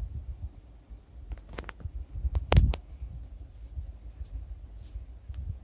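Low outdoor rumble with a few scratchy clicks and rustles, bunched about a second and a half and two and a half seconds in.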